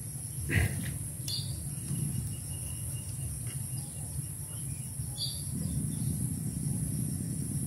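Riverbank ambience: a steady high-pitched drone of insects, with two short bird chirps and a low rumble underneath. A single knock sounds about half a second in.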